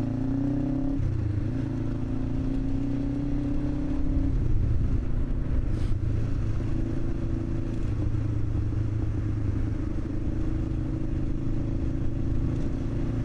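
Kawasaki ER-5 (ER500) 500cc parallel-twin motorcycle engine running under way, with a steady engine note that changes pitch about a second in and again about four seconds in.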